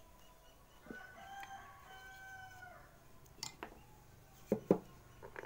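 A rooster crows once, a held call that drops in pitch at its end. After it come several sharp knocks, the loudest two close together near the end, as wood and tools are handled on a workbench.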